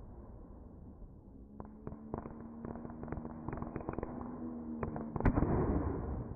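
Fireworks: the echo of a burst dies away, then a string of sharp crackles from the shell's crackling stars for about three seconds. Near the end comes a loud bang as the next shell is launched, and its tail hisses as it climbs.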